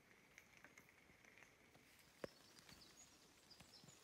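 Near silence outdoors: faint scattered clicks, one sharper click a little after two seconds in, and faint high bird chirps in the second half.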